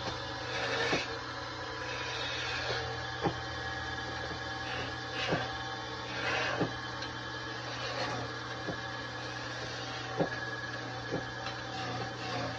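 Belt-driven wood lathe running with a steady hum while a hand-held turning chisel cuts and scrapes the spinning wooden molinillo blank. Sharp clicks and knocks come every second or two.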